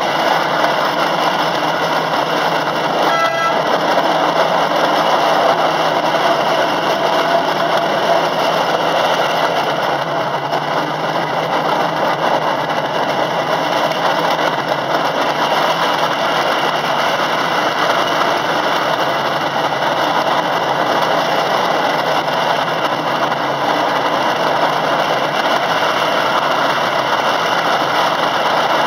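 Ride-on miniature railway train running steadily along its track, heard from a carriage, with one short horn toot about three seconds in.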